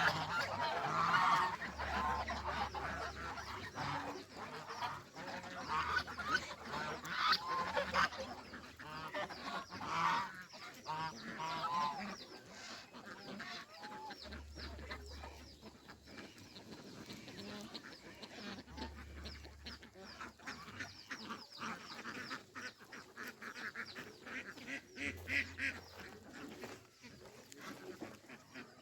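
A flock of domestic geese honking, many calls overlapping. The calls are loudest and densest over the first twelve seconds or so, then quieter and more scattered.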